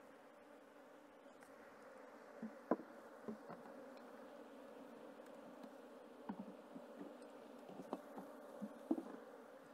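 Faint, steady buzzing of honeybees in an open hive, a colony the beekeeper takes to be queenless, with a few light clicks and knocks as the wooden frames are handled.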